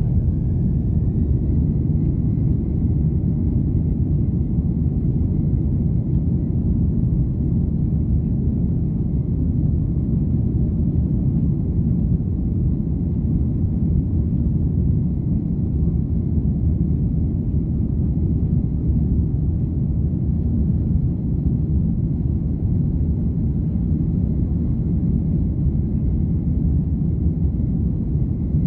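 Boeing 767-300ER's twin turbofan engines heard from inside the cabin at takeoff: a loud, steady low rumble with a thin whine that rises in pitch over the first couple of seconds as the engines spool up to takeoff thrust, then holds steady.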